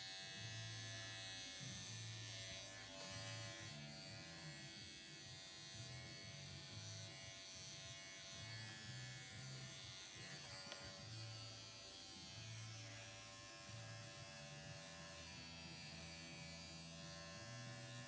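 Corded electric dog clippers running steadily with a buzzing whine while shaving a smooth fox terrier's short coat, with a lower hum that comes and goes as the blade works through the hair.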